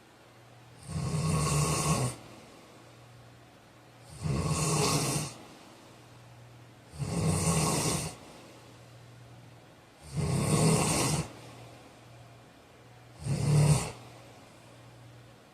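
A man snoring in a steady rhythm: five snores about three seconds apart, the last one shorter and the loudest.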